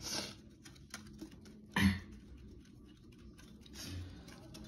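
Light clicks and knocks of hands and dishes while rice is served out of a steel dish, with one louder short knock about two seconds in.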